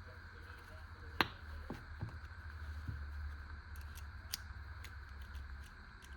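Faint clicks and taps of small metal parts as a bit kit is fitted onto a multi-tool, with one sharper click about a second in and a few softer ones after it, over a low steady hum.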